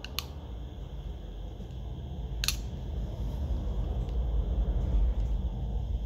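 Two sharp clicks of small plastic phone parts being pried with tweezers, one just after the start and a louder one about two and a half seconds in, over a steady low rumble.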